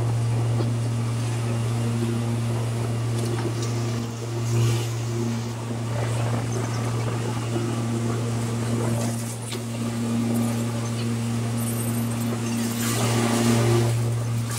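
A steady low engine drone with a constant hum, like riding inside a moving vehicle, swelling briefly twice.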